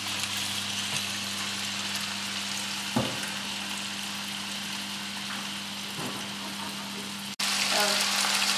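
Cubes of pork neck sizzling steadily in hot oil in a frying pan, with a low hum underneath and a single knock about three seconds in. Near the end the sizzle cuts out for an instant and comes back louder.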